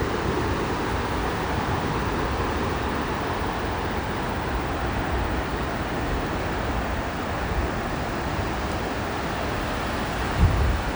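Steady, unbroken rush of a tall waterfall heard close up, full and deep. A short low thump comes near the end.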